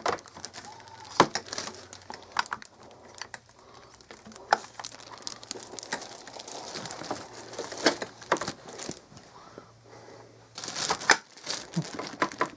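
Plastic packaging bags crinkling as the vacuum's parts are handled, with scattered sharp clicks and knocks of the plastic handle being fitted and snapped onto the body. A louder burst of crinkling comes near the end.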